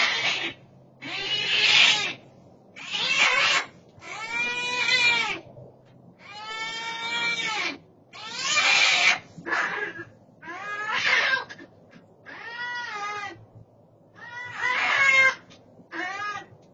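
Cats yowling in a fight between a small domestic cat and a bobcat: about eleven loud, wavering howls one after another, each up to about a second and a half long, with short gaps between them.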